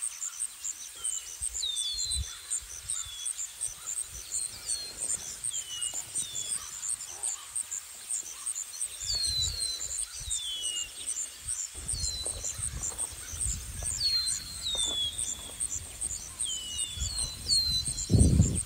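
Small birds calling: short falling chirps repeated every second or so, over a steady, fast-pulsing high note. Low rumbles come in from about halfway, with a louder thump near the end.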